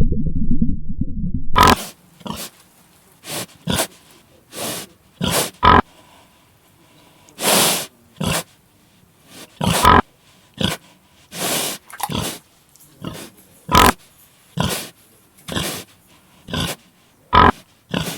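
An animal giving a series of short, harsh calls, irregularly spaced at roughly one a second. A loud low-pitched sound comes before them and cuts off abruptly about two seconds in.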